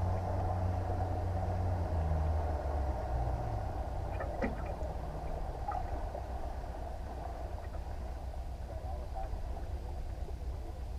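Low steady hum of a boat's motor that steps down in pitch about two to three seconds in, with a few light clicks about four and a half seconds in.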